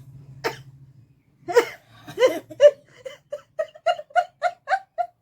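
A person laughing: two louder outbursts, then a quick run of short 'ha-ha' bursts, about four a second.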